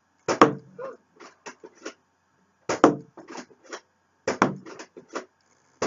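Sharp knocks and clicks in four bursts roughly one and a half to two seconds apart, each a loud knock followed by a few quicker, lighter clicks.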